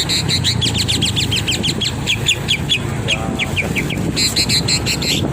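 Javan myna (jalak kebo) singing: a fast run of short, sharply falling chirps, about ten a second, mixed with quick buzzy high notes. A steady low rumble runs underneath.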